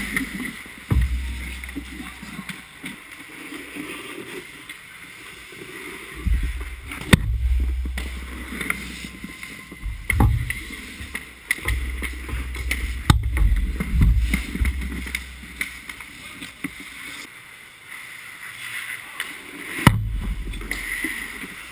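Ice hockey play at the goal mouth heard from a camera on the net: goalie skates and pads scraping the ice, with several sharp knocks from stick, puck or pad hits on the net frame, each followed by a low thud of the net and camera shaking.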